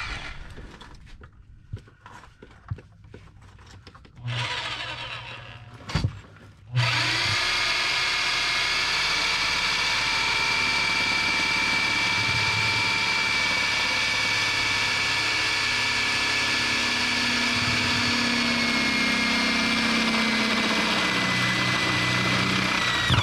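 Power drill boring a bolt hole through the car's subframe for a subframe connector. After a short run a few seconds in, it runs steadily under load for about sixteen seconds, the pitch sagging slightly late on, then cuts off suddenly.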